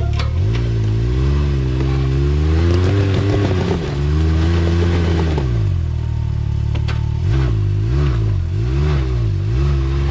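Side-by-side UTV engine revving up and down under throttle while rock crawling, with quick throttle blips about two a second near the end and a few sharp knocks over the engine.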